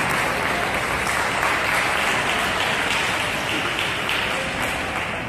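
Spectators clapping and applauding, dying away near the end.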